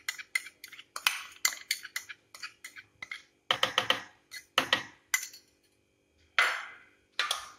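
A steel spoon clinking and scraping against a glass bowl and a plastic blender jar while condensed milk is scraped in. It comes as clusters of short, sharp knocks with brief pauses between.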